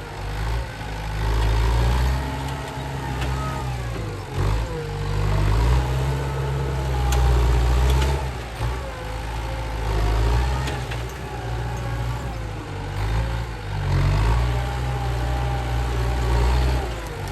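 Heavy diesel engine of earthmoving machinery running under load, its rumble rising and falling as it revs up and eases off several times.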